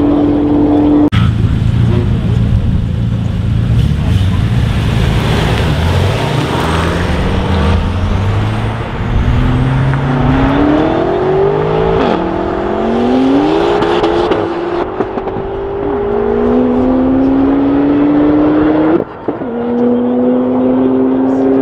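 High-performance cars, a BMW M5 F90 and a Porsche 911 Turbo S, accelerating hard. The engine pitch climbs repeatedly and drops back at each gear change, with a steady engine note before and after the run.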